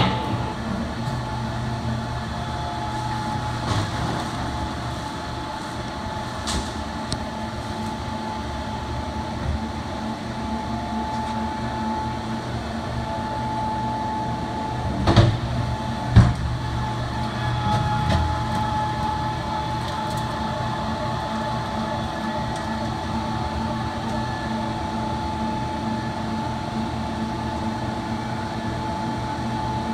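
Industrial 40-pound block cheese grinder with a 20 HP electric motor running steadily, a hum with a steady whine, as it grinds blocks of cheese. Two loud knocks about halfway through as a cheese block is dropped into the hopper.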